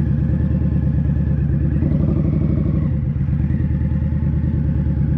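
Indian Scout Bobber's V-twin engine running steadily, a loud, even low pulsing with little change in pitch.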